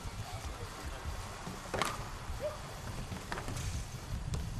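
Faint open-air ambience beside a canoe polo pool: a steady low rumble like wind on the microphone, with a few light clicks or splashes from paddles and boats.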